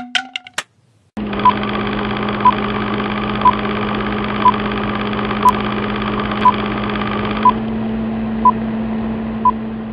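Film-countdown sound effect: a steady film-projector whirr with a short beep once a second, nine beeps in all. A few quick clicks come just before the whirr starts.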